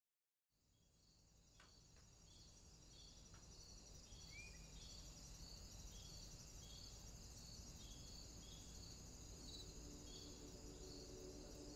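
Faint insect chorus, like crickets at night, fading in from silence: a steady high buzz with evenly repeated chirps, about one and a half a second. A single short bird call comes about four seconds in, and a low sustained tone enters near the end.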